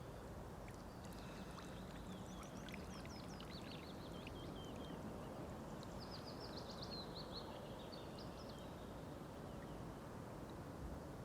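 A small bird singing two runs of quick, short chirps, over a faint steady low background hiss.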